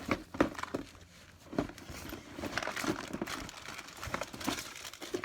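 Plastic packs of fishing baits crinkling and rustling as they are rummaged through and pulled out of a backpack tackle bag. Many short irregular crackles, with a brief lull about a second in.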